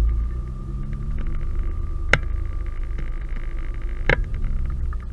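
Turbocharged Audi A4 3.0 V6 engine running at low speed, heard as a low rumble inside the cabin, its note falling over the first second or two. Two sharp knocks about two seconds apart.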